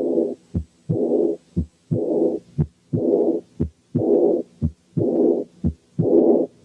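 Stethoscope recording of heart sounds at about one beat a second, with an early diastolic murmur starting right after the second heart sound in each beat. This murmur is the sign of aortic regurgitation (aortic incompetence).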